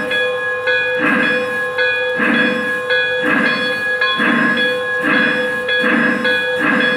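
A Lionel Pennsylvania CC2 0-8-8-0 O-gauge steam locomotive model's onboard sound system playing steam-locomotive sounds while the model stands still. It gives a rhythmic hissing steam puff about once a second over a steady tone.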